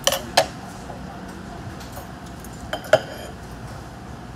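Metal spoon clinking against dishes at a meal table: two quick pairs of sharp clinks, one at the very start and another about three seconds in.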